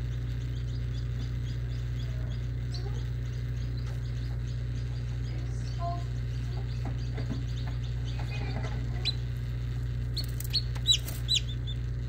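Hatching chick peeping: a few short, high-pitched peeps in the last few seconds, over a steady low hum.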